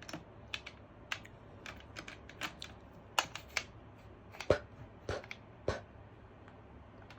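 Typing on a computer keyboard: irregular keystroke clicks, some in quick pairs, scattered through the few seconds.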